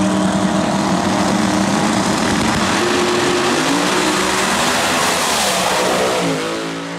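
Two pro mod drag cars held at high revs on the start line, then launching side by side at full throttle and running down the strip. Their engines are a loud, continuous blare with rising pitch, fading near the end as the cars pull away.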